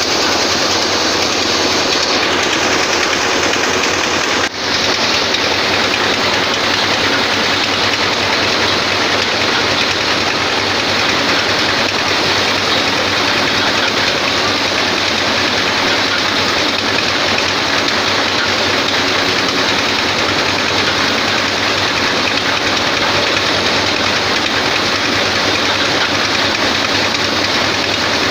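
Head-feed power paddy thresher running, a loud, steady mechanical din without pauses.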